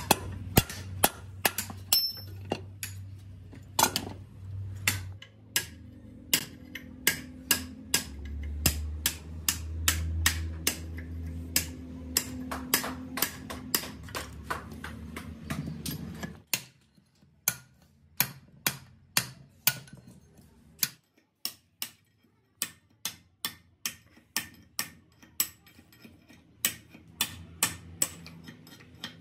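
A hammer striking a punch on a steel truck drum-brake shoe to knock out the old lining rivets. It is a long run of sharp metallic strikes, about two to three a second.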